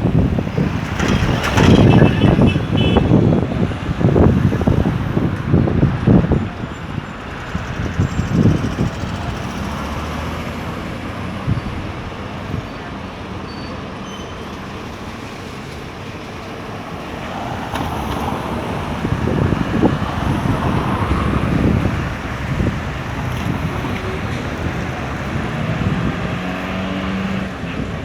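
City street traffic: vehicles passing, loudest in the first few seconds, easing off mid-way and building again later.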